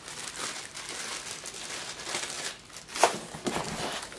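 A clear plastic packaging bag crinkling and rustling as it is handled, with one sharp crack about three seconds in. Near the end, a cardboard box is handled.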